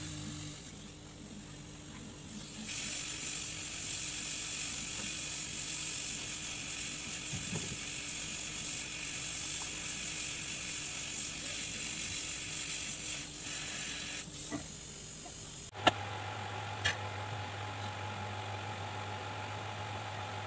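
Steady hissing and sizzling of flux being heated during soldering rework on a circuit board, starting about three seconds in. After an abrupt change near the end, a steady low hum takes over, with two short clicks.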